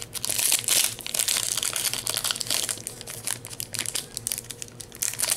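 Foil Yu-Gi-Oh Cosmo Blazer booster pack wrapper being torn open and crinkled in the hands: a dense run of sharp crackles and rustles, loudest in the first second.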